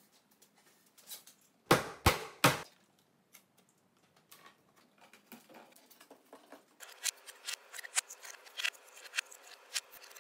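Three sharp knocks in quick succession about two seconds in, on a plywood cabinet panel being set in place during a glue-up. Then a run of light clicks and rattles, getting busier from about seven seconds in, as parallel bar clamps are slid along their bars and tightened on the box.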